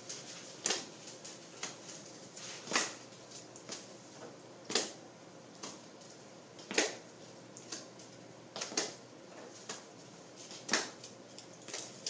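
Small sand-filled bean bags slapping into open hands as two partners pass them back and forth in a steady rhythm, a louder pat about every two seconds with softer pats between.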